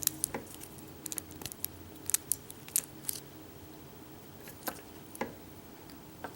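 Irregular light metallic clicks and taps of tools and small parts handled on a pin-tumbler lock cylinder as it is taken apart.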